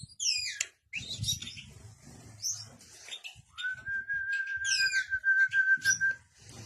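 Pet bird calling: a run of quick falling chirps and whistles, then one long steady whistle held for about two and a half seconds from about three and a half seconds in, with chirps over it.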